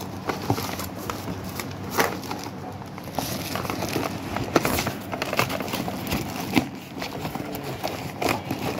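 Cardboard box being handled and its flaps pulled open: irregular rustling and crackling, with a few sharper clicks and knocks.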